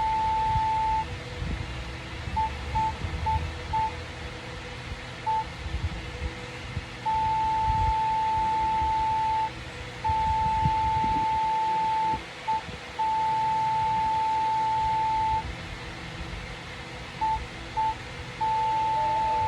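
Morse code sent as a single steady beep tone, keyed in short dots and very long dashes of several seconds each, spelling out 'the quick brown fox jumps over the lazy dog'.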